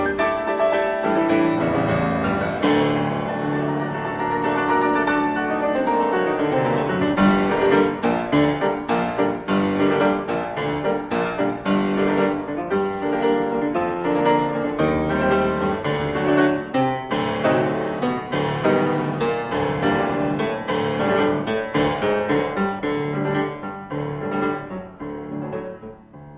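Piano music, a flowing melody over chords, fading out near the end.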